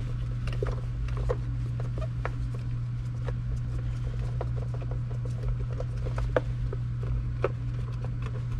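Scattered light clicks and taps, about one a second, over a steady low hum.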